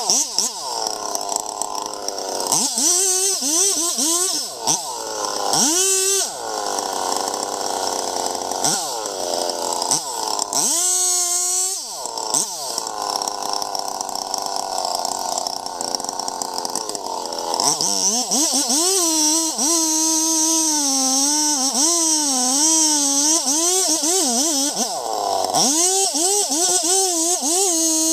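Chainsaw engine revving up in several short bursts, then held at high revs for roughly the last ten seconds with its pitch wavering as it cuts into the tree.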